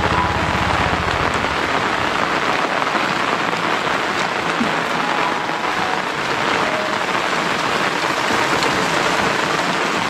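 Steady rain falling on a road and roadside plants, an even hiss, with a low rumble during the first second.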